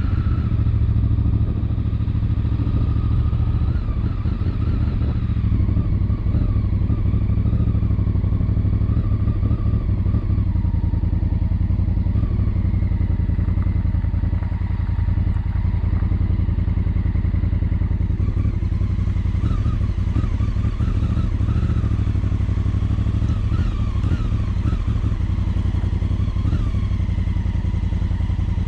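Adventure motorcycle's twin-cylinder engine running steadily, a continuous low engine note.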